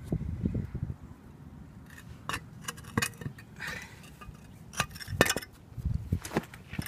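Irregular light metallic clinks and knocks of hard parts being handled and set against each other, probably the removed turbocharger being turned over in the hands.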